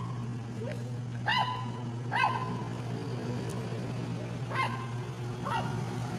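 A dog giving short, high yips or whimpers, four of them about a second apart, with a steady low hum underneath.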